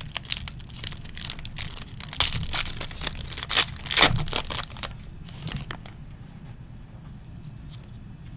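Foil wrapper of a 2021 Topps Inception baseball card pack crinkling and tearing as it is pulled open, loudest about two to four seconds in and dying down over the last couple of seconds.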